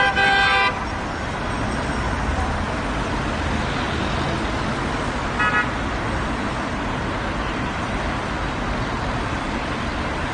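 Steady road traffic noise with car horns: a loud horn blast of under a second at the start, and a short double toot about halfway through.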